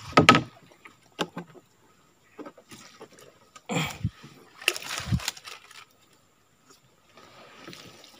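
Swamp water splashing and sloshing around a small boat and a half-submerged wire fish trap, in several short bursts with a few sharp knocks; the loudest burst comes right at the start.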